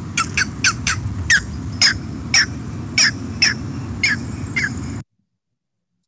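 Recorded green heron calls: a series of about a dozen sharp, downward-slurred squawks, roughly two a second, over low background noise. The recording cuts off suddenly about five seconds in.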